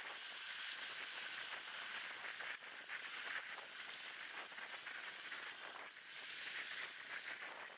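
Small wind-driven waves washing onto a sandy, shelly beach, mixed with wind on a phone's microphone. The low end has been cut by noise removal and a high-pass filter, leaving a thin, steady hiss.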